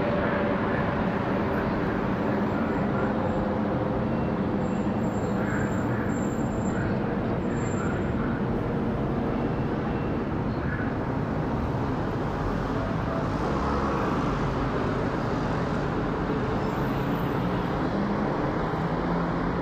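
Boeing 787-9's jet engines heard from the ground as a steady, distant roar, with a faint tone that sinks slowly in the first few seconds.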